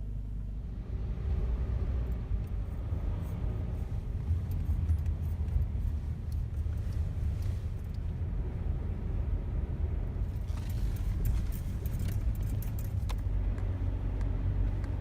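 Steady low rumble of a car driving, heard from inside the cabin, with a spell of light clicking and rattling about ten seconds in.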